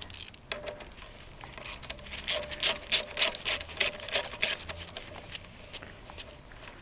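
Ratchet wrench clicking in a steady run of about three clicks a second, after a few scattered lighter clicks, as the front brake caliper's mounting bolts are snugged up lightly.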